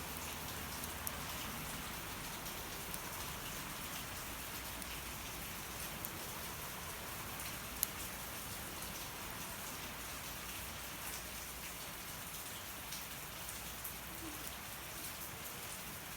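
Steady rain falling, with scattered sharp crackles and pops from a burning wood fire; the loudest pop comes about eight seconds in.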